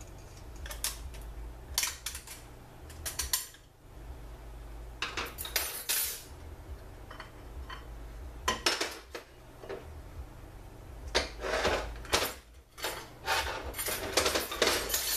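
Steel clutch drums and hand tools from a GM Turbo 400 automatic transmission clinking and clanking against each other and the steel bench as the drums are taken apart and handled: irregular sharp clicks and short rattling clusters, busiest in the last few seconds, over a low steady hum.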